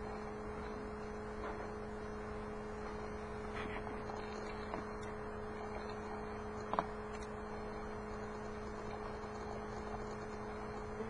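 Steady electrical hum with a low background hiss, broken by a few faint clicks, the sharpest about seven seconds in.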